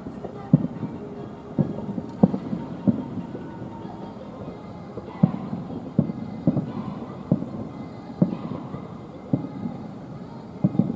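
Fireworks shells bursting in the distance: about a dozen dull booms at irregular intervals, some in quick pairs, each trailing off in a short rumble.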